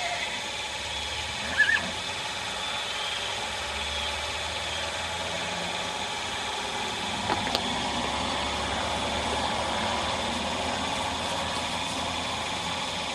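A steady mechanical hum, engine-like, with two brief high chirps about a second and a half in.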